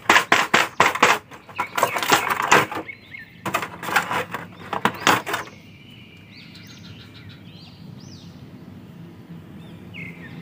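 Thin clear plastic blister packaging crinkling and crackling in quick clusters of clicks as an action figure is pulled out of its tray, stopping about halfway through. After that, faint bird chirps over a low steady background.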